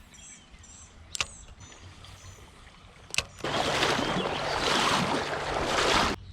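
A loud rushing, splashing water noise close to the microphone that starts abruptly about halfway through and cuts off suddenly near the end, after a quieter stretch with faint bird chirps and a couple of sharp clicks.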